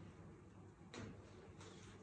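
Near silence, room tone with a faint brief rustle about a second in and a weaker one near the end.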